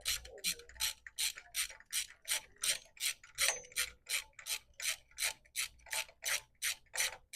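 Socket ratchet clicking steadily, about four clicks a second, as a spark plug is wound into the cylinder head.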